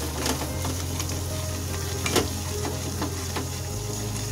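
Spatula stirring cream into frying masala in a non-stick pan: a light sizzle under scraping and short knocks of the spatula against the pan, one sharper knock about two seconds in.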